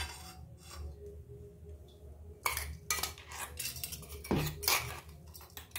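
Steel spoon and stainless-steel mixer-grinder jar clinking and scraping as coarsely ground spice masala is emptied into a small steel bowl: a single clink at the start, then a quick run of metal clinks and scrapes in the second half.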